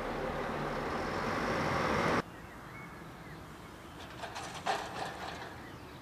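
Regional diesel train approaching the station, a steady rumble growing slightly louder that cuts off abruptly a little over two seconds in. Quieter outdoor background follows, with a short high chirp and a few faint knocks.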